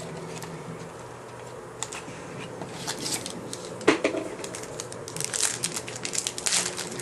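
A trading-card pack being opened and its cards handled: the wrapper crinkles and the cards click and rustle. There is a sharp tap about four seconds in, and denser crinkling near the end.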